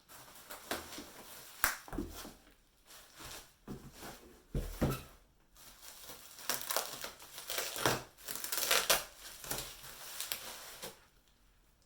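Protective packaging wrapping being crinkled, crushed and torn open by hand, in irregular crackling bursts with sharp clicks.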